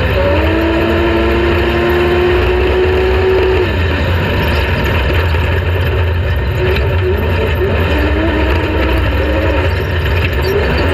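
Off-road race vehicle engine running hard under a loud, dense rumble. Its pitch climbs slowly for about three seconds, then drops off, and keeps rising and falling unevenly after that.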